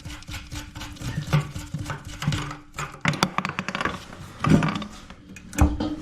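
Cordless drill with a socket running in short bursts to back off a nut on the old toilet parts, its motor humming with a fast ticking. Near the middle comes a quick run of rapid clicks, then a few loud clunks of the loosened parts.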